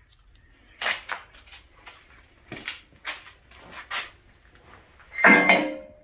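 Metal fifth-wheel parts knocking as the lock jaws are worked into place: a string of short knocks, then a louder, longer clatter near the end.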